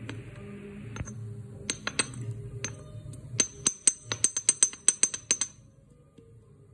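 Miniature stone grinder: the small stone roller clicking and knocking against the stone slab and the cashew, garlic and onion pieces on it. The sharp clicks start about two seconds in, come quickly, about five a second, through the middle of the stretch, and stop a little before the end.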